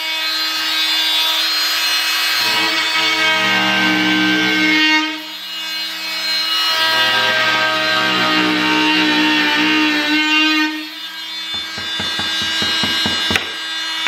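Dremel Multi-Max MM45 oscillating multi-tool buzzing as its wood-and-drywall blade cuts through half-inch drywall, dipping briefly about five seconds in. Near the end the cutting stops and a quick run of light taps follows.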